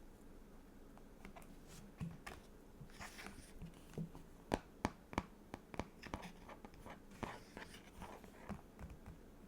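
Stickers and a sticker book being handled: soft rustling and peeling of paper and plastic with scattered light taps and clicks, a few sharper clicks around the middle.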